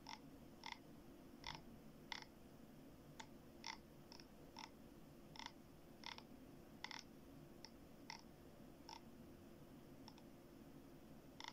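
Faint, sharp clicks, about fifteen of them at uneven intervals of half a second to a second, as someone clicks through a device looking for a photo.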